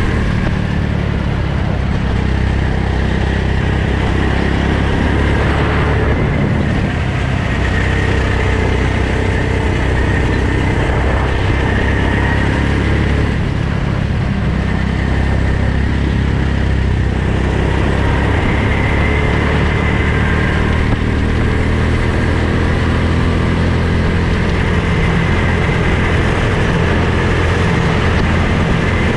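Go-kart petrol engine running hard on track, heard from a helmet-mounted camera, its note rising and falling with the throttle.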